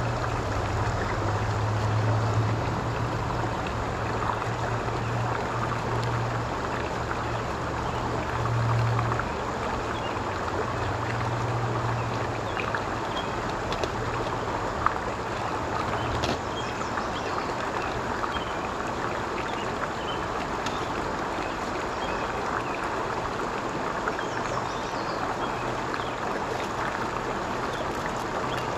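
Shallow rocky creek running over stones, a steady rushing babble of water. A low rumble sits under it through the first half and fades out about halfway through.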